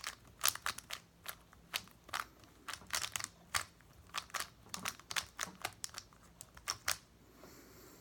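Rapid irregular clicking of a speed cube's layers being turned by hand; the turning stops about seven seconds in.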